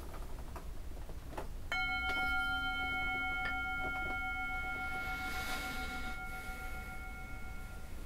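Metal singing bowl struck once with a wooden striker about two seconds in, ringing with a low hum and several higher steady overtones that sustain for about six seconds, then stops short near the end.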